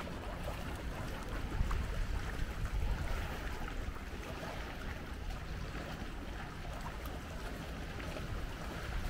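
Wind rumbling on the microphone over a steady wash of sea water.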